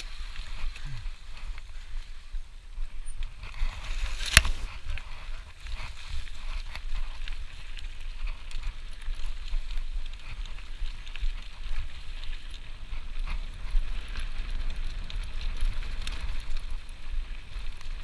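Mountain bike descending a rough dirt singletrack: tyre noise and the bike rattling and clicking over bumps, under a steady wind rumble on the microphone, with one sharp knock about four seconds in.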